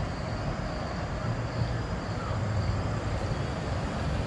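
Steady low rumble with a fainter hiss above it: outdoor background noise with no distinct events.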